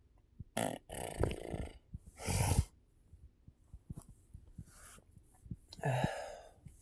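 A man's loud breaths and gasps through nose and mouth, in a few short noisy bursts; the loudest and sharpest comes about two and a half seconds in, and a shorter gasp with a low voiced edge comes near the end.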